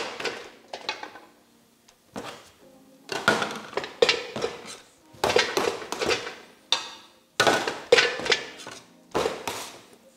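A dough scraper chopping down on a stainless steel bench and pieces of dough dropped into a metal scale pan: about ten sharp knocks, roughly one a second, each with a short metallic ring.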